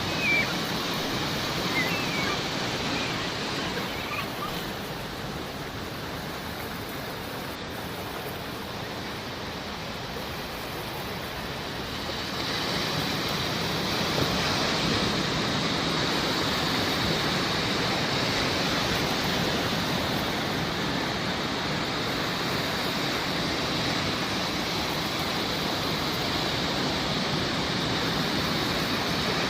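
Sea waves washing on a shore: a steady rushing that swells louder about twelve seconds in. A few short seagull calls come in the first few seconds.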